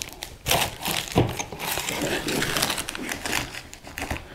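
Rustling and crinkling with short light knocks and clicks, as materials are handled and rummaged through by hand.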